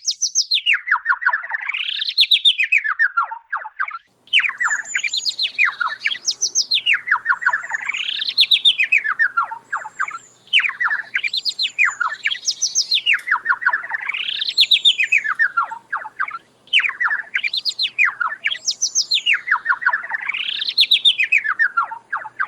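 A songbird singing in long phrases of rapid trilled notes whose pitch sweeps down and back up, each phrase broken by a short pause every three to four seconds. Faint, short high whistles from another bird come in now and then through the middle.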